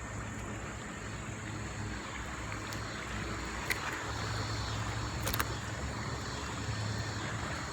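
Steady rush of shallow river water running over rocks, with three faint clicks in the middle.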